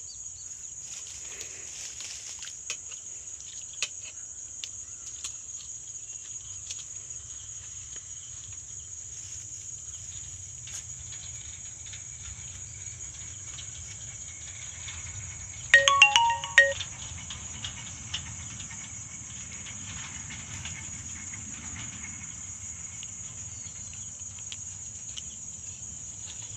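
Crickets shrilling in a steady high-pitched drone. About sixteen seconds in, a loud burst of electronic beeps at several pitches lasts about a second, with faint clicks here and there.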